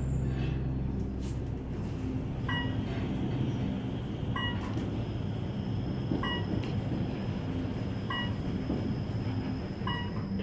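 Moving elevator car rumbling and humming steadily, with a short electronic beep repeating about every two seconds, five times. A faint high steady whine joins about halfway through.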